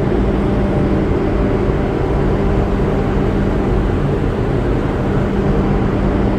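Steady machinery drone with a constant low hum, unchanging throughout.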